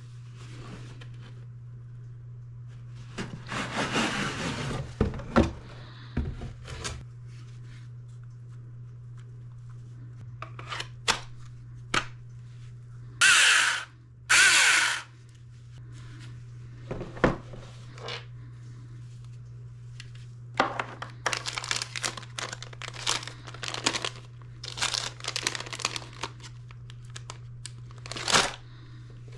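Packaging and a small tool being handled at close range: rustling, crinkling, clicks and knocks, with two loud hissy sounds under a second long each about halfway through and a busy run of clicks and rustles near the end, over a steady low hum.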